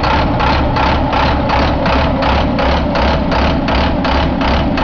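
International MaxxForce DT diesel engine idling steadily, with an even pulsing of about four beats a second.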